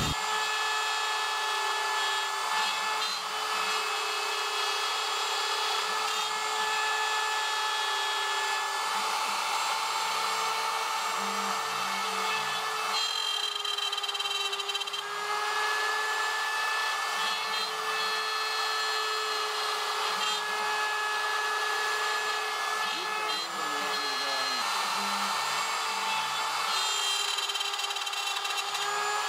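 CNC router with a quarter-inch spiral bit engraving grooves into a hardwood tabletop: the router motor's steady whine over the noise of the bit cutting wood, shifting slightly in pitch a few times.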